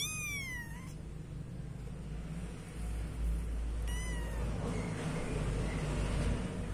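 Young kitten meowing twice: a high, thin call that rises and falls at the start, and a shorter falling one about four seconds in. Soft rustling follows near the end.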